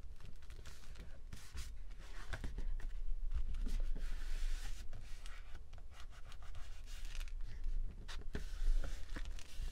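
Hands rubbing and pressing a freshly glued paper page flat onto a journal page: a dry, scratchy rustle of palms sliding over paper, with a few light taps. The rubbing is strongest a couple of seconds in and again near the end.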